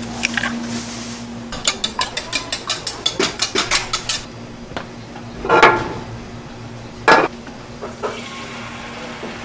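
Restaurant kitchen work with metal utensils and dishes: a quick, even run of knocks, about six a second, lasting a few seconds, then two louder single clatters of dishes.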